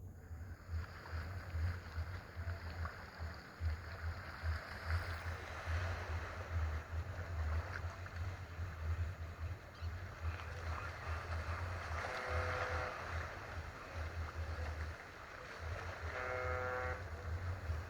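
A BlackBerry Curve 9220 ringtone played through the phone's speaker: a steady rush of water-like noise over a low rumble, with a short pitched call about twelve seconds in and another near the end.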